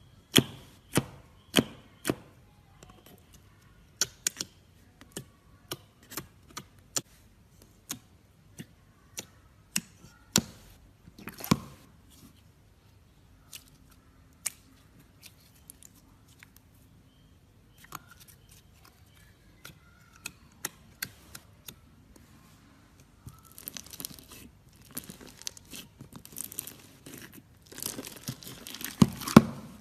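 Slime being pressed and played with by hand: a run of sharp pops and clicks, about one or two a second, then sparser ticks, turning into dense crackling for the last several seconds.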